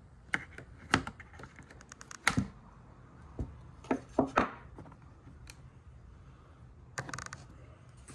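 Irregular light clicks and taps of plastic and metal as the battery compartment cover on the underside of a 1/4-scale RC dirt bike is handled and unlatched, with a quick cluster of clicks about seven seconds in as the cover comes off.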